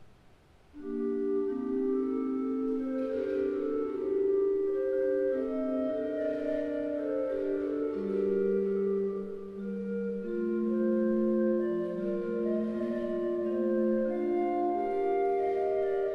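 The 1714 Boizard pipe organ playing a slow Baroque air of sustained notes in several voices, tuned in meantone temperament at low pitch (a=392 Hz). The music begins about a second in.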